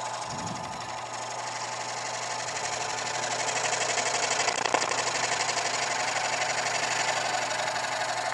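Early-1930s Dunlop cast-iron scroll saw, belt-driven by a separate electric motor, running with a fast, steady chatter of the reciprocating blade as it cuts a strip of wood, over a steady motor hum.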